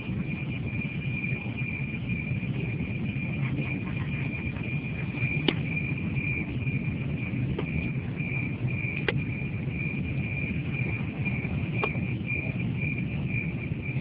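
Warning siren of a new Alkmaar-type railroad crossing, its early non-standard sound, giving one steady high tone as a train approaches, with a low rumble underneath and a few faint clicks.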